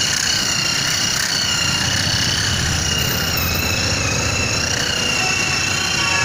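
Handheld electric rotary car polisher running with its pad on a car's bonnet: a steady high motor whine that wavers slightly in pitch, over a low rumble. The noise is put down to worn bearings in the polisher.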